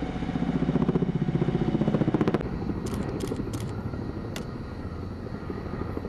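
Rapid, even thudding of a firefighting helicopter's rotor, which stops abruptly about two seconds in. A lower rumble with a few sharp clicks follows.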